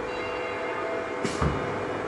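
Blue Elephant 1530 ATC CNC router running, a steady machine hum with a few steady whining tones. A little over a second in comes a short sharp hiss followed by a low thud.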